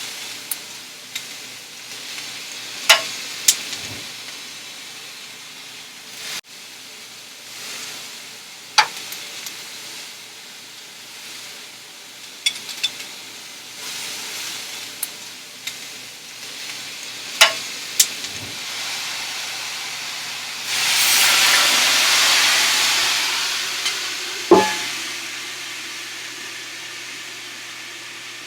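Buffalo kebab sizzling in olive oil on a hot skillet, with several sharp clinks and knocks scattered through. About 21 seconds in, the sizzling swells loudly and then fades over a few seconds.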